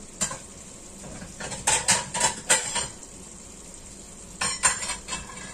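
Kitchen dishes and metal utensils clattering: quick clusters of clinks and knocks, a brief one at the start, a longer run about a second and a half in, and another near the end.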